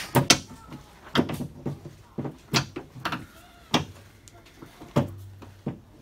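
Irregular sharp clicks and knocks of a screwdriver pushing in the centre pins of white plastic push-in trim clips on a car tailgate's inner panel, loosening the clips so the trim can come off.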